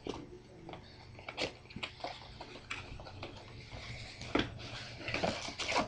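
Irregular rustling and light clicks of packaging and cards being handled and unwrapped, over a faint steady low hum.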